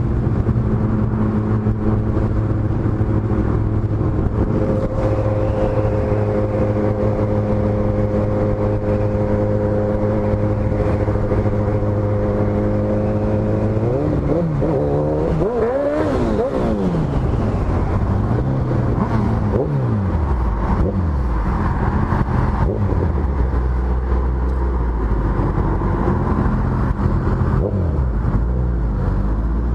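Motorcycle engine holding a steady cruising drone for about the first thirteen seconds. Then the revs sweep down and up through several gear changes as the bike slows, settling into a low, slow-rolling rumble near the end.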